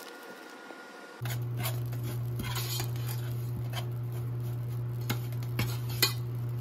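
A metal spoon scraping and clinking against a stainless steel saucepan while stirring dry dark brown sugar, in irregular strokes with one sharper clink near the end. Under it, a steady low hum starts suddenly about a second in.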